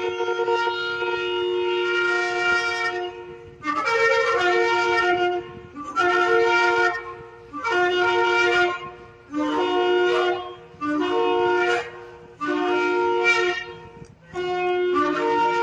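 Shofar (ram's horn) being blown: one long blast, then a run of about seven shorter blasts, each stepping up in pitch. Another long blast starts near the end.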